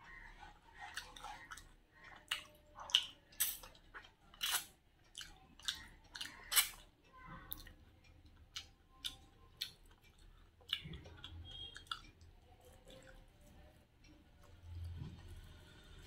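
Close-miked wet chewing and lip-smacking while eating chicken shawarma: many sharp mouth clicks, busiest and loudest in the first half, growing sparser later. A low rumble comes near the end.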